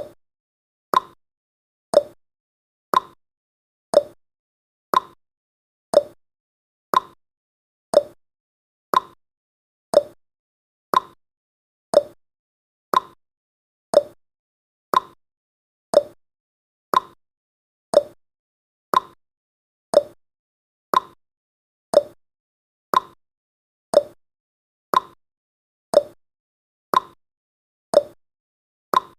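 Countdown timer's clock-tick sound effect, one short sharp tick about every second at an even pace.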